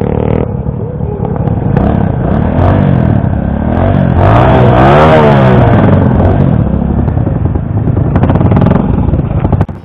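Several motorcycles riding past one after another close by, each engine rising and then falling in pitch as it goes by, with the loudest pass about five seconds in. The sound cuts off suddenly just before the end.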